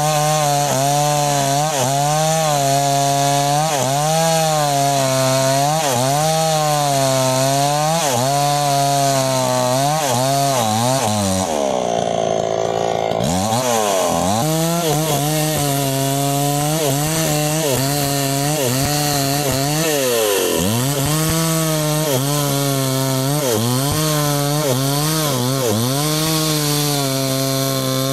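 New West 628 two-stroke chainsaw cutting through sengon wood at full throttle, the engine pitch dipping and recovering about once a second as the chain bites into the cut. About twelve seconds in it briefly revs higher and steadier, off the load, then settles back into cutting.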